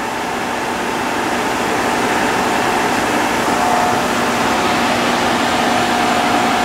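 Fire truck's engine running at a fire scene: a steady, loud mechanical rush with a faint steady whine over it.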